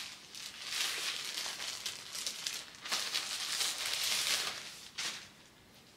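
Clear plastic clothing packaging crinkling as it is handled and opened by hand, in two long stretches of rustling and a short one near the end.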